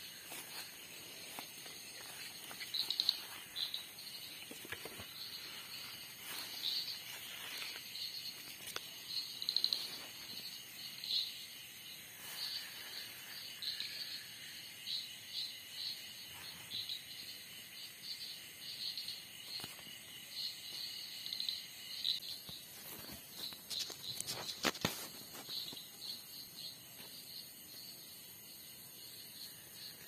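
Crickets and other insects chirping in a dense, continuous chorus of quick repeated high chirps over a steady shrill. Now and then there is rustling and a few sharp knocks from someone moving through undergrowth, with the clearest knocks about 25 seconds in.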